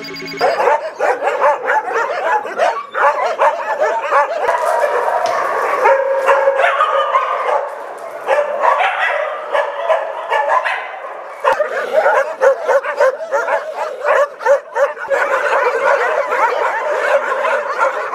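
Many dogs barking at once, a dense overlapping din of many voices, with a short lull about eleven and a half seconds in.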